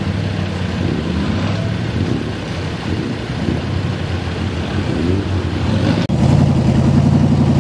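Mitsubishi Pajero's engine pulling at low revs through a muddy ford. About six seconds in the sound jumps louder, with an engine revving up and down.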